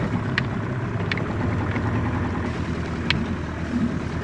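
Small boat under way on a steady low electric trolling-motor hum, with water noise at the hull and a few sharp ticks.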